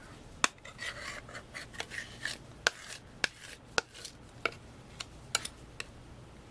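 Metal palette knife scraping and tapping against a clear plastic sheet as it mixes thick whipped spackle: a string of irregular light clicks with a few short scrapes about a second or two in.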